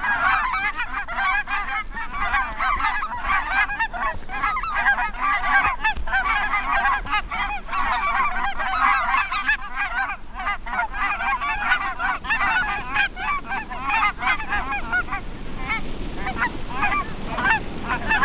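A large flock of geese honking, many calls overlapping in a dense, continuous chorus that thins out over the last few seconds.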